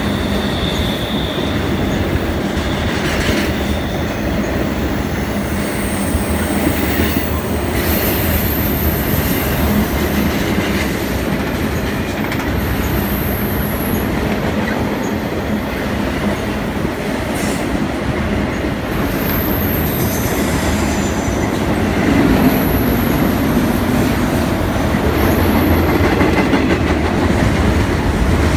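Two freight trains rolling past each other, one of double-stack intermodal cars and one of enclosed autorack cars: a steady, loud rumble of steel wheels on rail, with short high-pitched wheel squeals now and then.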